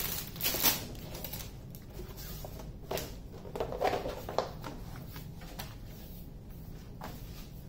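A large rolled diamond painting canvas rustling and crackling in several short bursts as it is unrolled and pressed flat by hand.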